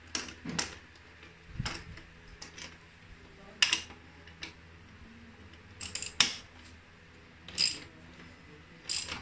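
Small metal bolt parts clicking and clinking as they are handled and fitted by hand: about eight short, sharp clicks at uneven intervals, the loudest a little before the middle and again about two-thirds through.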